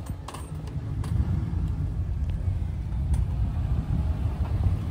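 Nissan Skyline R32's engine idling steadily.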